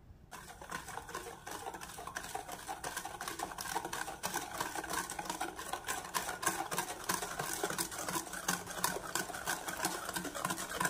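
Wire balloon whisk beating cake batter of egg, sugar and oil in a stainless steel bowl: rapid, even clicking of the wires against the bowl, starting just after a short quiet moment.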